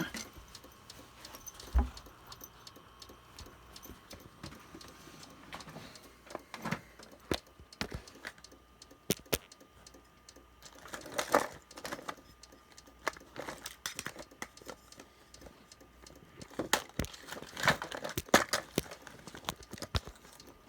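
Irregular clicks, taps and light rattles of hands and tools working at an open desktop computer, with a faint steady whine through about the first half.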